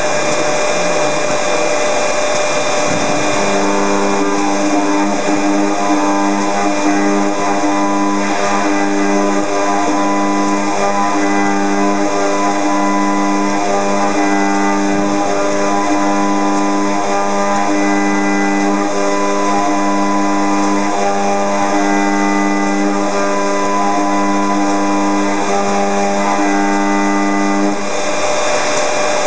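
Robot-held FIMEC high-speed spindle milling aluminium: a steady spindle whine, joined about three seconds in by a strong droning cutting tone as the cutter bites the metal. The tone breaks off briefly every few seconds and stops shortly before the end, leaving the spindle running on its own.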